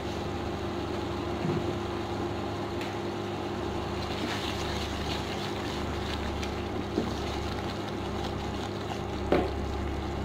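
Steady electrical hum and cooling-fan drone of an induction cooktop, with a few short knocks and scrapes of a wooden spatula against a steel pot as thick tomato masala is stirred.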